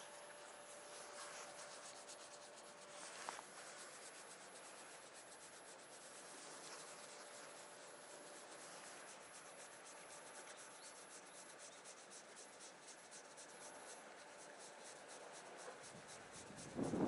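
Faint, steady rubbing and scratching of fingers stroking a cat's fur close to the microphone, with a louder rustle just at the end.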